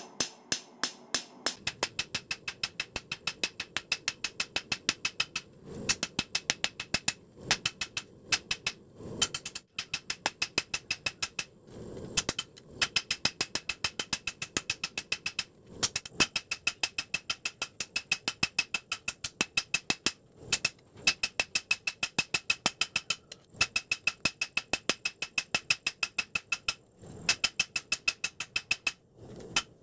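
Hammer blows on a red-hot leaf-spring steel knife blank lying on a round steel anvil, about three to four strikes a second in runs broken by short pauses, each strike ringing metallically. The hot steel is being hammered out into a blade.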